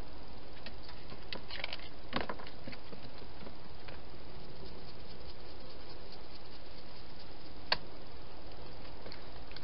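Wild hedgehog moving and feeding inside a plastic feeding box: a few small clicks and crackles in the first two seconds and one sharp tap near the end, over a steady hiss.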